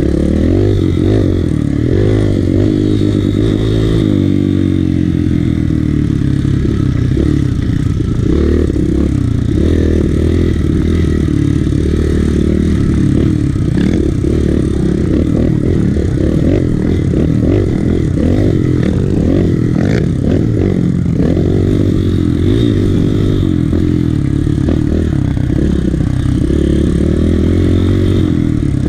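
Kawasaki KLX150 dirt bike's single-cylinder four-stroke engine, heard from on the bike, running hard as the throttle is opened and rolled off again and again, the engine note rising and falling.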